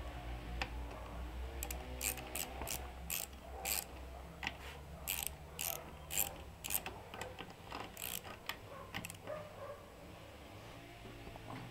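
Socket ratchet clicking in short, irregular runs while it works the cylinder head bolts on a Motor Villa 2.5 HP stationary engine being taken apart.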